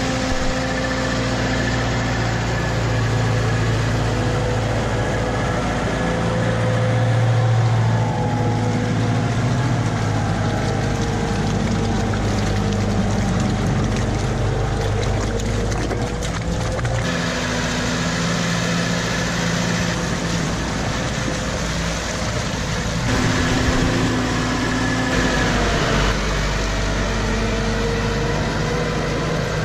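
Valtra 6850 tractor's diesel engine running steadily under load as it hauls a loaded forest trailer through deep mud, its pitch drifting up and down a little. The engine note changes abruptly about halfway through and again near the end.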